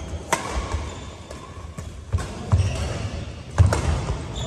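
Badminton rally: several sharp cracks of racket strings striking the shuttlecock, with dull thuds of players' shoes landing and lunging on the court mat, echoing in a large hall.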